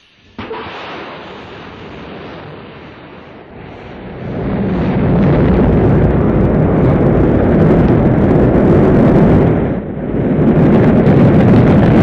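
Rocket launch: engine noise breaks in suddenly about half a second in, then a deep rumble swells much louder about four seconds in as the rocket lifts off and stays loud, with a brief dip near ten seconds.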